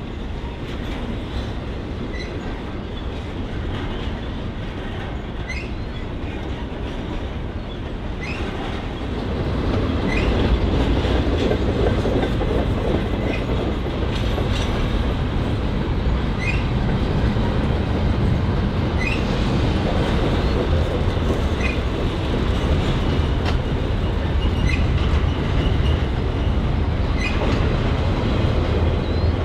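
Norfolk Southern freight train's cars rolling past with a steady rumble, and a clack of wheels over the rail every couple of seconds. It gets louder about ten seconds in.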